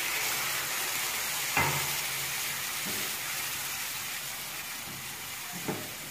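Milk sizzling as it hits a hot kadai of ghee-fried chopped walnuts and khoya, the hiss slowly dying down as the spatula stirs. Two sharp knocks, about one and a half seconds in and near the end.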